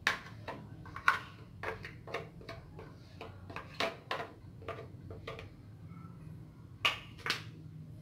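A spatula scraping and knocking against the inside of a blender jar as batter is scraped out: a string of irregular short clicks and taps, with a gap of a second or so before two sharper knocks near the end.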